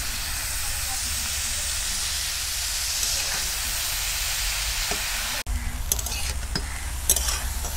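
Chopped banana flower sizzling in hot oil in a steel kadhai. The sound cuts out suddenly about five seconds in, then a quieter sizzle follows with sharp clicks and scrapes of a steel spatula stirring it against the pan.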